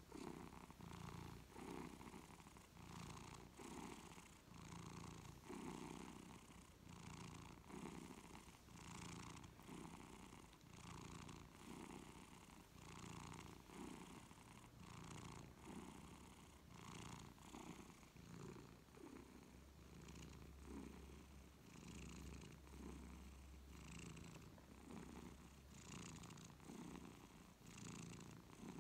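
Long-haired tabby cat purring steadily while being stroked on the head, a contented purr that swells and fades with each breath, about once a second.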